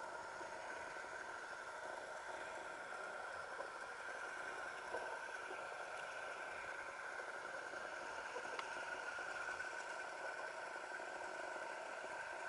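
Underwater ambient noise picked up by a diver's camera in its housing: a steady hiss with a constant hum at one pitch, and a couple of faint clicks.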